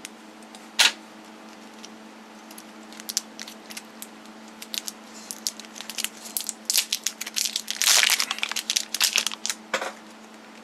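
Wrapper being crinkled, crushed and torn by hand: a run of sharp crackles and clicks that grows busiest about seven seconds in, over a steady low electrical hum.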